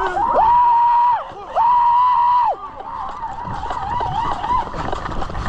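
Two long, high-pitched held yells of about a second each, then a few shorter wavering calls. Scuffing steps follow near the end.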